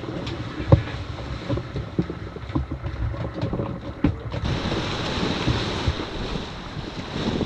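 Wind buffeting the microphone and sea water washing past a sailboat's hull under way, with scattered sharp knocks in the first half. A broader rush of water starts about four and a half seconds in.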